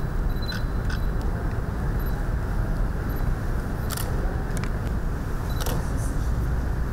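Camera shutters clicking a handful of times, scattered and irregular, over a steady low rumble of room noise.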